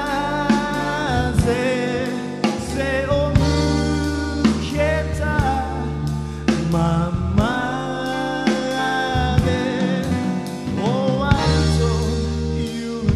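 A live band plays a slow soul ballad in triple time, with drum kit, bass, keyboards and guitar. A melodic lead line with vibrato and sliding pitch rides on top.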